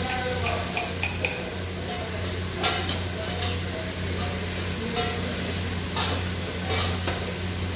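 Metal utensils clinking and scraping against a plate and an aluminium pot, with a few sharp clinks about a second in and more strikes later, over a low sizzle of chicken and liver cooking in the pot and a steady hum.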